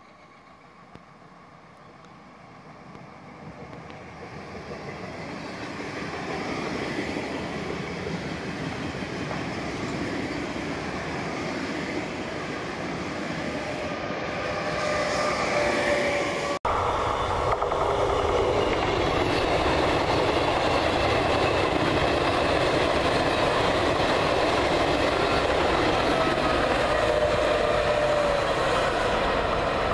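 Electric regional passenger train approaching and running past, its running noise growing steadily louder over the first several seconds. After a sudden break about 16 seconds in, the steady running noise of another electric train, a locomotive hauling coaches, holds at an even level with faint whining tones.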